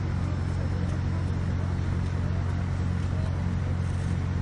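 Steady low machine hum, unchanging in pitch and loudness.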